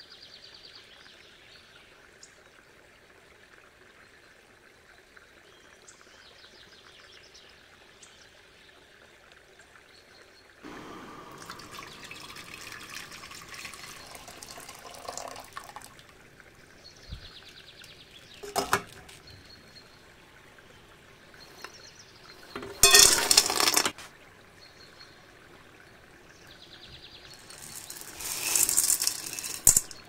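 Water running and pouring in short spells, loudest a little past the middle and again near the end, with a few sharp clicks in between.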